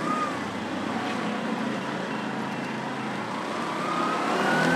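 Small engine of a three-wheeled mototaxi running as it turns and drives up the street. Its note rises briefly near the start and climbs again toward the end as it speeds up.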